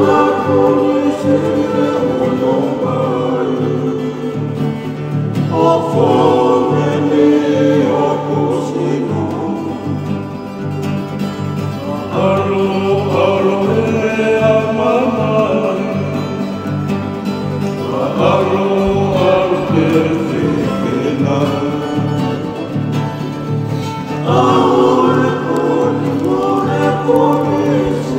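Voices singing a Tongan song to a twelve-string acoustic guitar. The chords run on steadily while the sung lines come in phrases about every six seconds.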